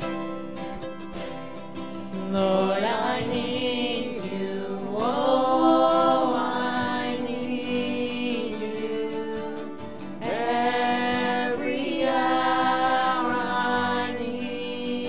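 Live worship song: singing accompanied by strummed acoustic guitar, with sung phrases rising in about two seconds in and again about ten seconds in.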